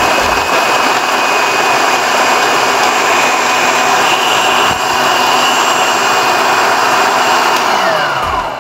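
Electric food processor running, its blade chopping carrots and onion, with a steady motor whine. Near the end it is switched off and the motor winds down, its pitch falling.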